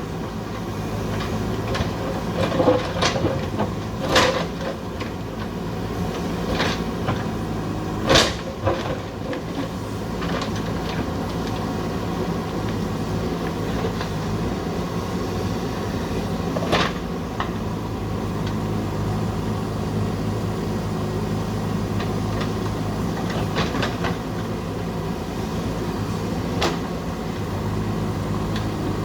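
JCB 3DX backhoe loader's diesel engine running steadily under work, with several sharp clanks from the bucket and arm as it digs.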